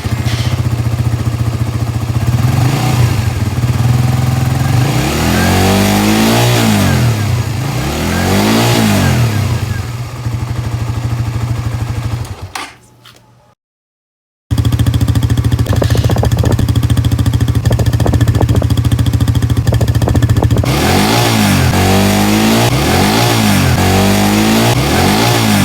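Suzuki GSX-S150's single-cylinder engine idling and being revved in two short takes split by a brief cut: twice in the first and about three times in the second, each rev rising and falling. It is a sound test of the intake with a ComStar high-flow cotton air filter and a shortened airbox snorkel, which the owner finds gives a deeper intake sound.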